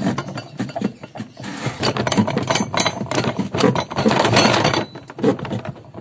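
Plastic clattering and scraping inside a washing machine tub as the Sanyo's pulsator is worked loose from its shaft by pulling on a shoelace hooked under it. It comes as a run of quick knocks and rubbing, densest from about a second and a half in to about five seconds.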